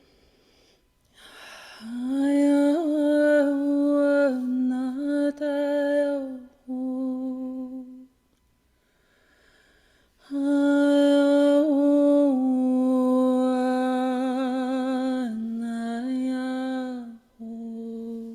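A woman's wordless vocal toning, sung as a channeled angel soundscape: long held notes that step between a few nearby pitches, in two long phrases with a breath between them, the second phrase wavering with vibrato.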